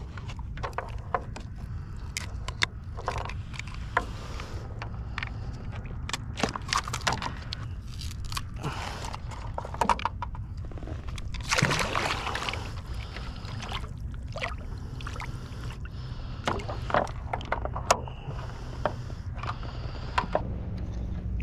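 Scattered clicks, knocks and scrapes of fishing gear being handled on a plastic kayak deck while a bluefish is unhooked in a rubber landing net, over a steady low rumble. About halfway through there is one longer, louder rustle.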